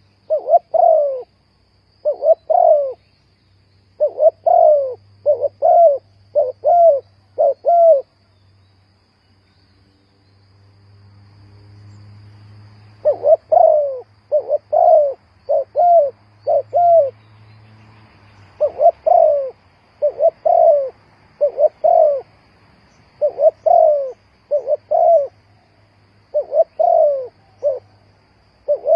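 Spotted dove cooing: short groups of deep coo notes, repeated over and over, with a pause of about five seconds roughly a third of the way in before the calling resumes.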